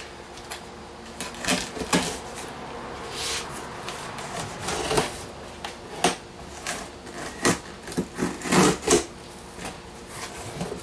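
Packing tape being slit and peeled off a cardboard box, then the box flaps pulled open: a string of short rips, scrapes and rustles, loudest near the end.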